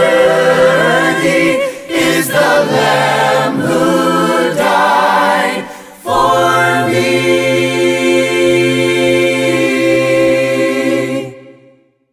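A cappella voices singing a hymn in harmony, with a short break about halfway through, then holding one long final chord for about five seconds before it fades out near the end.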